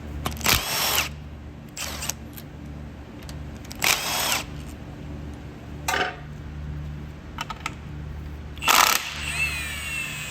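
Metal engine parts and tools clanking and scraping in short bursts, about four times, the last clank leaving a ringing metallic tone that fades out, over a steady low hum.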